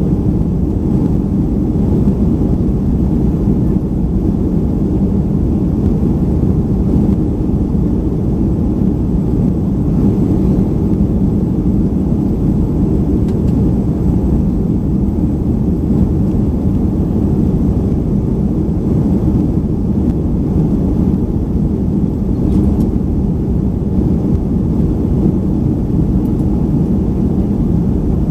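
Steady low roar inside the cabin of a Boeing 737-500 in flight, the engine and airflow noise of its CFM56-3 turbofans heard from a window seat over the wing. It is a deep, even rumble with no change in pitch or level.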